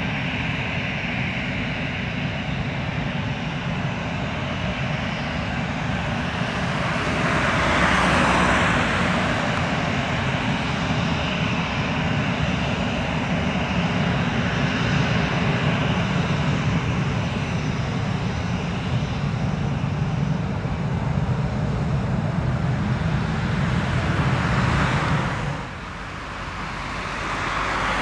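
Airbus A320 jet engines at taxi power, a steady rumble with a hissing whine as the airliner rolls past. It swells about eight seconds in, drops off sharply near the end, then starts to build again.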